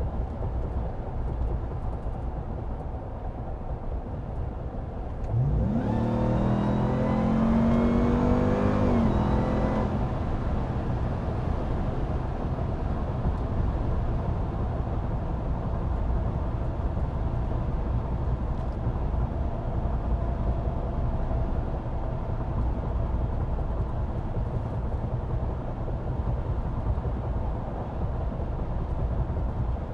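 Road noise inside a 2022 Ram TRX's cabin: a steady low rumble from its large 35-inch tyres on a washboarded road. About five seconds in, the truck's Hellcat V8 revs up as it accelerates, rising in pitch for a few seconds, then drops back under the rumble about ten seconds in.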